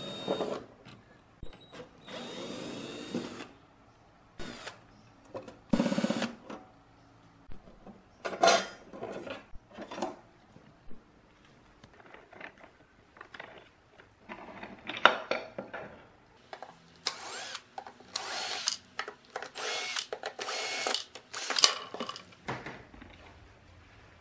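Cordless drill-driver spinning out screws from a moving-head stage light's plastic housing in a few short whirring bursts. These are followed by clicks, scrapes and clatter as the screws are handled and the plastic cover panels are worked loose and pulled off.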